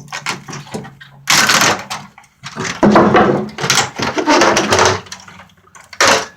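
Small mini transformers being yanked by hand off a TV's circuit board: several loud bursts of cracking, scraping and rattling as the parts are wrenched free.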